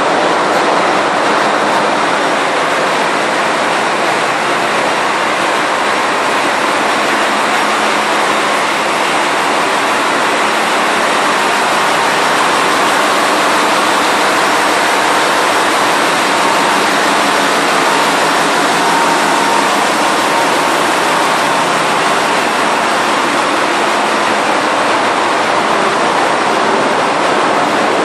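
Container ship engine-room machinery, its diesel engines and plant running, making a loud, steady, unbroken din.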